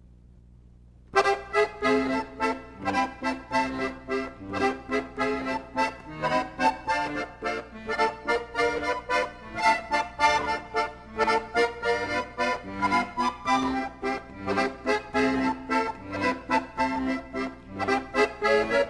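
Lively instrumental theme music with a quick, steady beat of sharply struck notes, starting about a second in.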